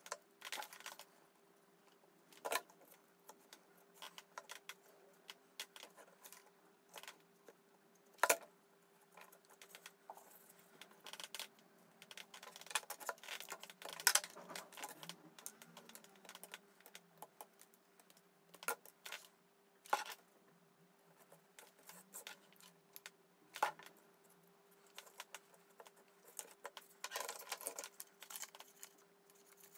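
Cardboard and balsa model parts handled and set down on a cutting mat: scattered light taps, clicks and rustles, with a few sharper knocks. A faint steady hum runs underneath.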